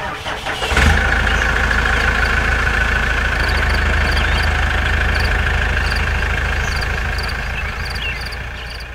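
An engine idling steadily. It comes in suddenly about a second in and fades slowly near the end, with a faint high ticking about twice a second over it.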